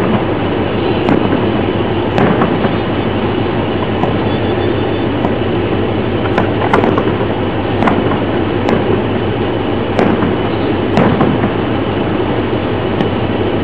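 Aerial fireworks shells bursting overhead: about a dozen sharp bangs at uneven intervals, roughly one a second, over a constant loud rumbling background noise.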